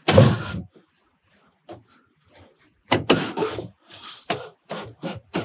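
Wooden drawer being pushed home into a plywood platform: a loud sliding knock at the start, then a quick run of short knocks and bumps in the second half as the panel and drawer are shoved into place.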